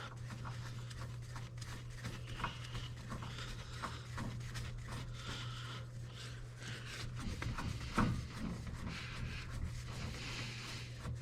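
Faint rubbing, scraping and light clicks of hands and tools working at an oil filter, over a steady low hum, with a sharper knock about eight seconds in.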